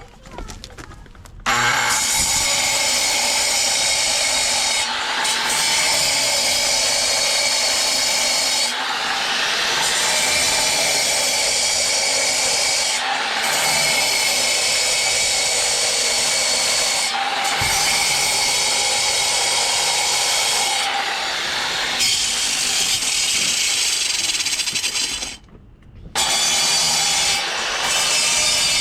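A power tool running steadily under load, easing briefly every few seconds. It cuts out for about a second near the end and starts again.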